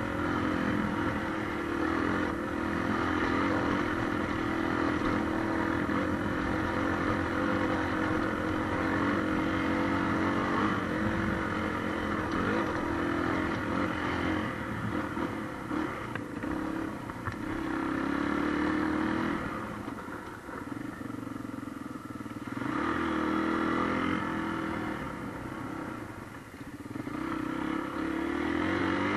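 Motorcycle engine running under throttle on a dirt trail, its note dropping away twice, about two-thirds of the way through and again near the end, as the throttle is eased off.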